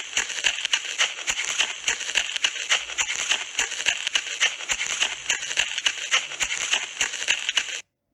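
A dense crackling rattle of many rapid clicks over a steady hiss, cutting off suddenly near the end.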